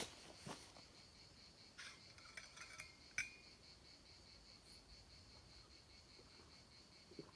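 Faint steady chirring of insects, with a few light metallic clinks and taps about two to three seconds in as a metal water bottle is opened and handled for a drink.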